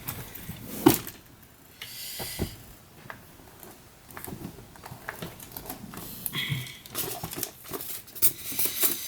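Handling noises: scattered knocks and clicks with some rustling, and a brief squeak about two thirds of the way through.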